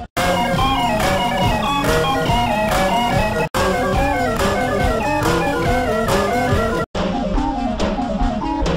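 Music with a guitar melody over a steady beat, cutting out for an instant twice.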